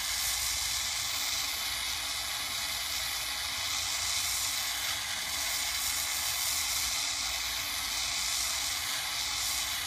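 Jeweler's gas torch flame hissing steadily as it plays into a ceramic melting dish, melting a gold pendant that is almost fully liquefied.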